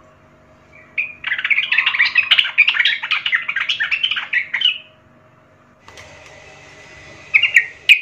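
Yellow-vented bulbul singing: a fast, jumbled run of short notes for about four seconds, then a brief second phrase near the end.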